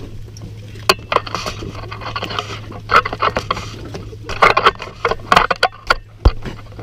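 Close handling noise: rustling, scraping and several sharp knocks as a camera is moved and set down low, with a dull thump about six seconds in. A steady low hum runs underneath.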